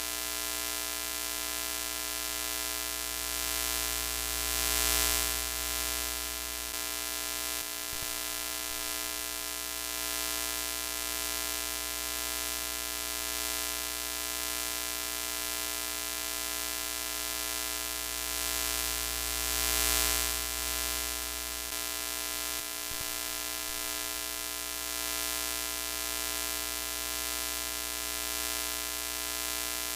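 Broken-television static sound effect: a steady electrical buzz with many overtones under a hiss. It swells briefly about five seconds in and again about twenty seconds in.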